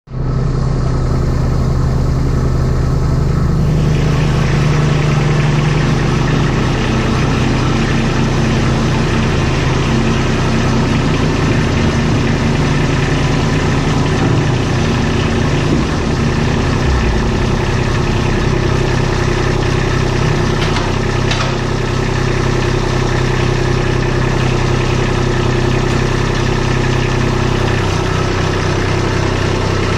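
Kubota compact tractor's diesel engine running steadily at low revs, with a slight change in its sound about four seconds in.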